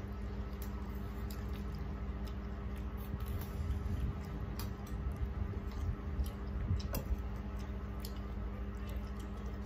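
Eating sounds from rice being mixed and scooped by hand on steel plates, with scattered small clicks of fingers and a spoon against steel, over a steady low hum.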